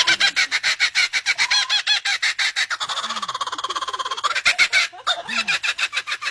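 A bird giving rapid, laugh-like cackling calls, about eight to ten a second.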